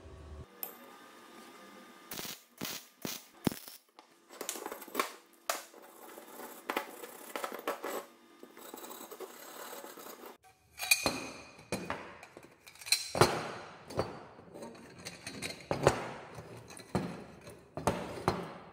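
Metal tubing and brackets knocking and clanking against each other and the workbench as they are handled: a string of sharp metallic knocks, louder and closer together in the second half.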